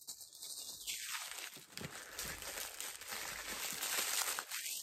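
Plastic and paper packaging crinkling and rustling as it is pulled off a mini backpack, in irregular handling noises.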